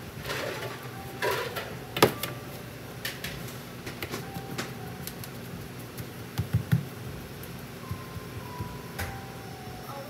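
Spoon scraping and clinking against a glass bowl and metal mousse rings as buttery cookie crumbs are scooped and pressed into the rings on a metal tray. A sharp clink comes about two seconds in, and a few dull knocks follow a little past halfway.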